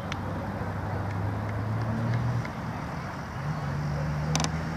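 A motor vehicle's engine running with a steady low hum that fades about halfway through and returns a little higher in pitch; a sharp click near the end.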